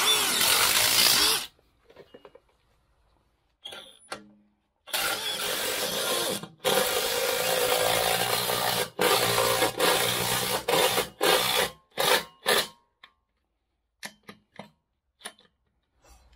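Parkside Performance PDSSAP 20-Li B2 cordless brushless impact driver run in separate trigger pulls. One burst comes at the start, then a string of one- to two-second runs from about five seconds in, ending in a few quick blips.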